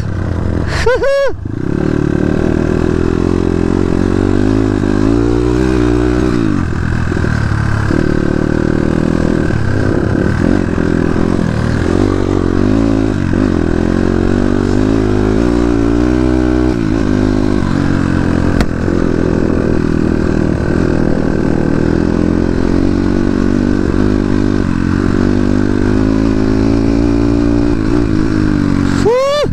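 Dirt bike engine running under way, its pitch rising and falling again and again as the throttle opens and closes.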